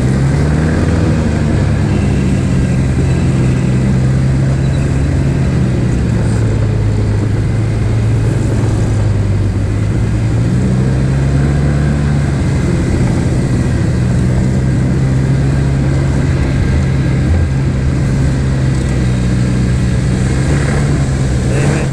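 Snowmobile engine running steadily under way, its pitch sagging slightly about halfway through and then rising again.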